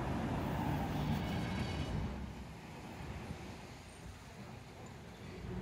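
Norfolk Southern freight train's cars rolling past at a distance: a steady low rumble that drops off a little after two seconds in.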